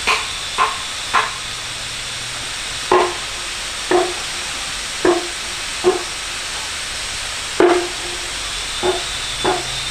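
Repeated blows striking wood, about one knock a second at an uneven pace, each with a short hollow ring. A steady high hiss runs underneath.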